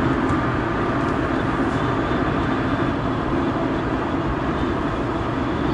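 Steady cabin noise inside a first-generation Honda Insight driving on a circuit: its 1.0-litre three-cylinder engine running at an even pace under road and wind noise, with no revving or gear changes heard.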